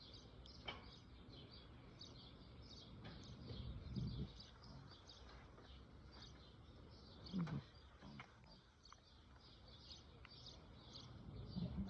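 Faint, steady series of short high chirps repeating about two to three times a second, an animal chirping in the background. A few dull low bumps come about four seconds in, at seven and a half seconds, and near the end.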